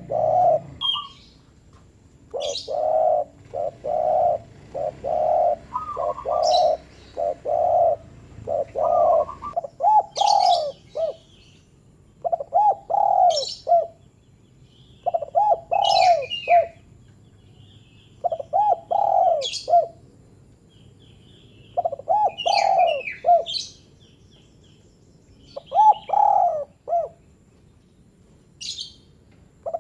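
Spotted dove (terkukur) cooing its short call in phrases of three or four notes, repeated every few seconds.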